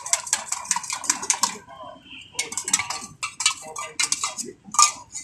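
A spoon clinking quickly against a stainless-steel cup as a drink is stirred. The clinking breaks off about a second and a half in, then starts again, more unevenly.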